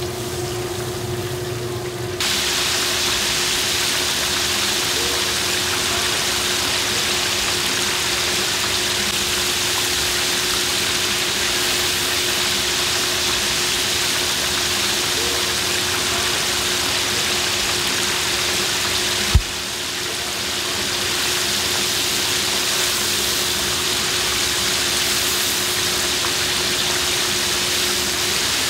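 Oil sizzling steadily in a commercial deep fryer as battered pork ribs fry, over a steady low hum. It gets louder suddenly about two seconds in, and there is a single sharp click near the two-thirds mark.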